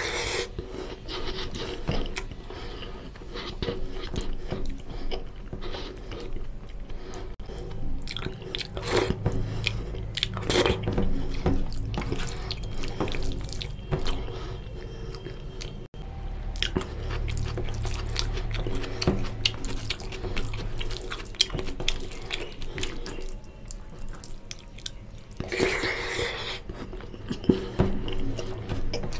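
Close-miked wet eating sounds: a mouth chewing and smacking on oily mutton curry and rice, with squelching as bare fingers mix the rice into the gravy. Dense small wet clicks throughout, with a few louder wet bursts.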